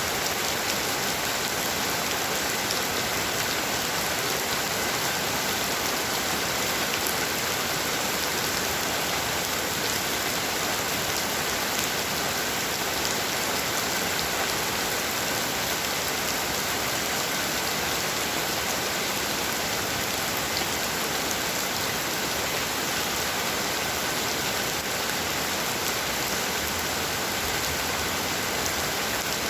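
Heavy rain falling steadily, a dense even hiss with scattered drop ticks on surfaces.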